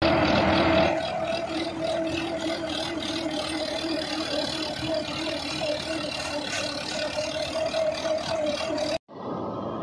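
Sonalika DI 60 tractor's diesel engine running steadily under load while it pulls a trencher cutting a trench in the soil, with a constant hum over a rough mechanical clatter. It cuts off abruptly near the end and a different, duller sound takes over.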